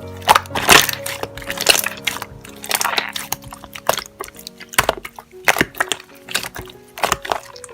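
Slime being squeezed and poked by hand, giving irregular crackling clicks and small squishes, over soft background piano music.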